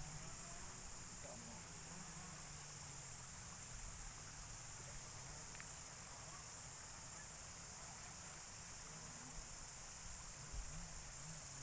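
Quiet outdoor ambience: a steady high-pitched hiss with a low, uneven wind rumble on the microphone, and only a few faint brief sounds.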